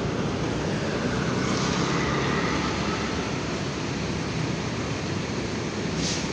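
Large diesel bus engines running in a queue, a steady low rumble, with a brief hiss near the end.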